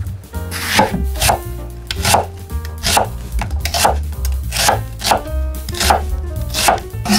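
Chef's knife slicing an onion into wedges on a wooden cutting board, the blade knocking against the board about every half second, starting about a second in.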